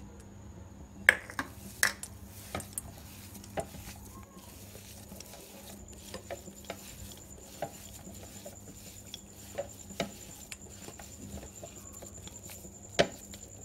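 Hands kneading chocolate chips into soft cookie dough in a glass bowl: quiet handling noise with scattered light taps of hand and dough against the glass, the sharpest about a second in and near the end.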